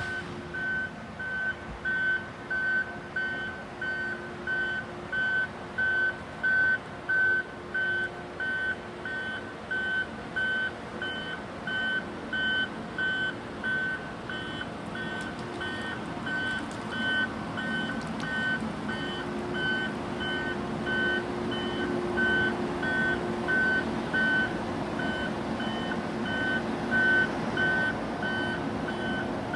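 Grapple skidder's backup alarm beeping steadily, a little under two beeps a second, over its diesel engine running. The engine grows louder in the second half as the machine backs out of the woods toward the listener.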